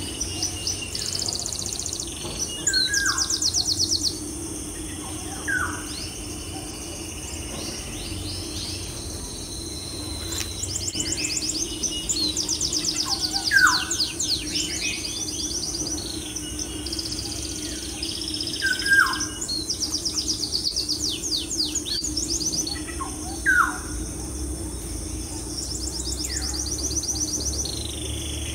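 Birds chirping: repeated rapid high trills and short falling whistles every few seconds, over a steady low hum.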